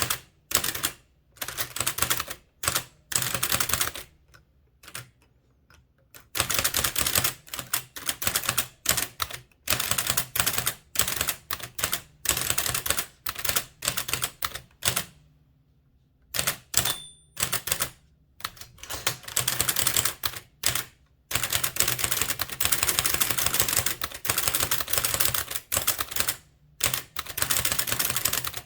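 Blickensderfer typewriter being typed in quick runs of sharp key clacks, about four or five characters a second, with short pauses between runs. A brief ring sounds once, a little past the middle.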